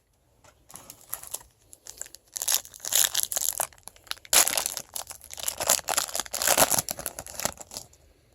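A foil trading-card pack wrapper being torn open and crumpled by hand, a run of crinkling and tearing that is loudest in the middle and stops shortly before the end.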